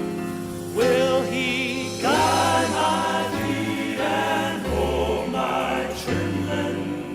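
Southern gospel male vocal quartet singing in close harmony over piano accompaniment, the voices coming in about a second in.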